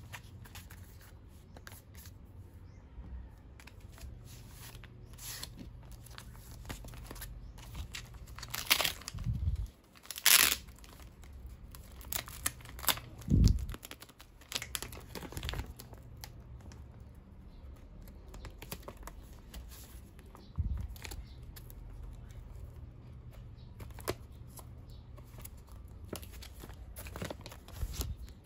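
Plastic sleeve and paper packaging of a CD album being handled: crinkling, rustling and short tearing sounds as the packaging is pulled open. The loudest crackles come about a third of the way in and again about halfway.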